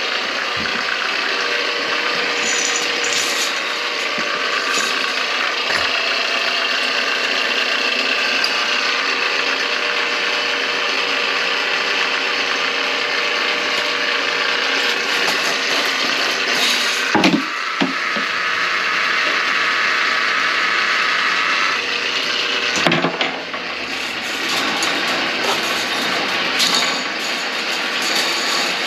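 Drain auger (snake) running its cable into a grease-clogged kitchen drain line, a steady mechanical rattle with a faint held whine. A few sharp knocks come past the middle.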